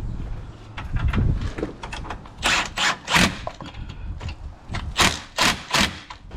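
A handful of short knocks and scrapes as tools and axle parts are handled during a repair, with the loudest ones in the second half.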